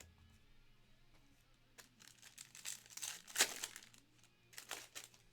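Foil wrapper of a trading card pack crinkling and tearing as it is opened by hand, in a few short bursts with the loudest rip about halfway through.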